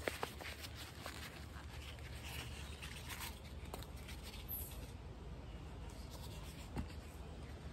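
Faint scraping and rustling of a plastic plant pot squeezed and pushed by gloved hands, working a cucumber seedling and its root ball loose from the pot.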